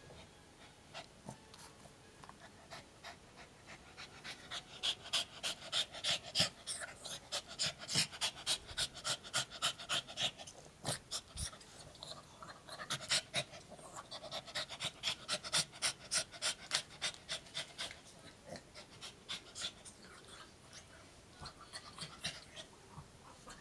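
Puppy panting in rapid, breathy huffs, about three a second, in two long runs with a short break about halfway; there is no voice in them, as the puppy has no voice.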